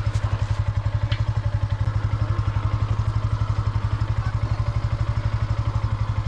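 Motorcycle engine running at low revs with a steady, evenly pulsing thump, as the bike is eased slowly down a steep, rocky track.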